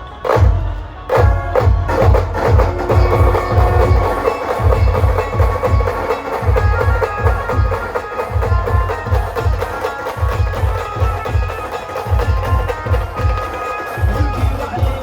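Brass band playing: heavy bass-drum beats under a held brass melody. It opens with a few separate drum strokes before the steady beat sets in.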